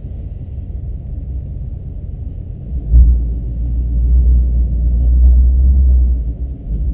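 Shelby GT350's 5.2-litre flat-plane-crank V8 running at low speed, a deep rumble heard from inside the cabin. It swells louder about three seconds in and eases back near the end.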